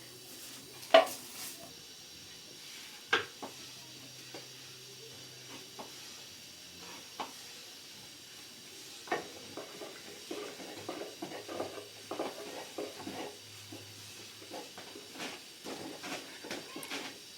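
Cookware and utensils being handled while baking bread: a few sharp separate knocks and clinks, then a busier run of light scraping and tapping from about ten seconds in.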